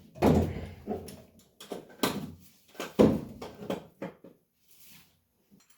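Metal clunks and knocks as a starter motor is worked into position on the engine, with three louder knocks in the first three seconds and lighter clicks between.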